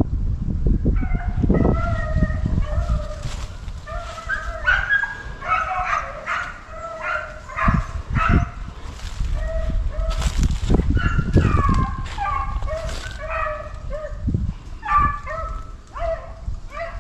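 Beagles baying on a rabbit chase: repeated drawn-out bawls, sometimes several dogs at once, from about a second in, meaning the pack is on the rabbit's scent. Wind gusts buffet the microphone throughout.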